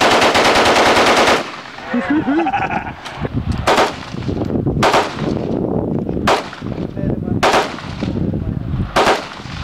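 A rifle fired on full automatic: one rapid burst of about a second and a half. It is followed by single loud gunshots roughly once a second.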